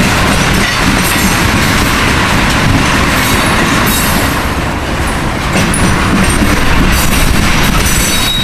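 Ethanol tank cars of a freight train rolling past steadily, their wheels rumbling on the rails.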